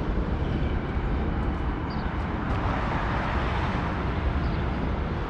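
Road traffic noise from a busy street, with a vehicle passing and swelling loudest about three seconds in.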